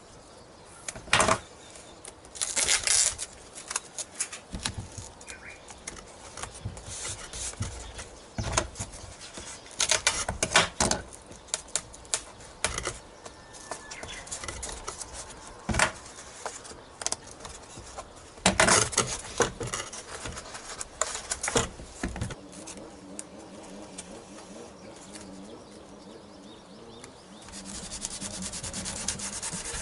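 Hands working adhesive tape onto the foam wing of a radio-control model plane: the tape crackles sharply several times as it is pulled and torn, with scattered clicks and rubbing as it is pressed down. A faint low hum comes in during the last several seconds.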